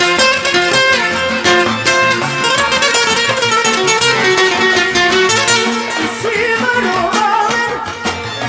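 Live Serbian wedding band music led by an accordion playing fast runs of notes. A singing voice comes in over the band about two-thirds of the way through.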